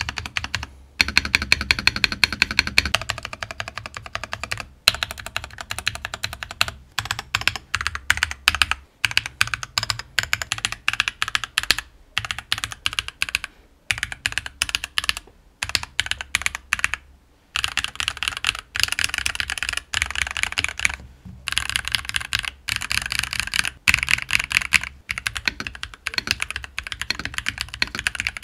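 Typing on a Nuphy Halo65 mechanical keyboard fitted with its stock Gateron Pro 2.0 Brown tactile switches and PBT keycaps: a fast, continuous clatter of keystrokes in runs, broken by brief pauses every few seconds.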